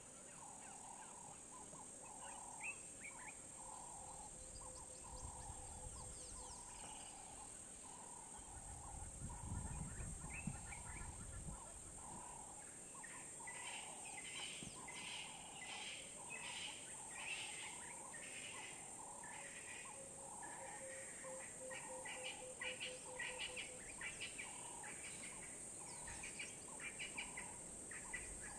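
Ambient bush sound of birds calling: one bird repeats a short, low note over and over, roughly once a second, while others add bursts of higher chirping, mostly in the second half. A steady high-pitched drone runs underneath, and a brief low rumble comes about nine seconds in.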